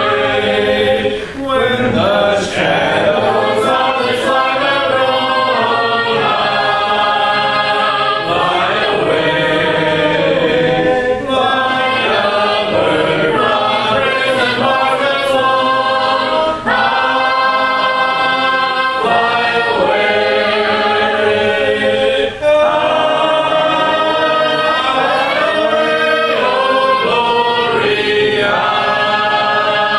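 A congregation singing a hymn a cappella, without instruments, with brief pauses between phrases.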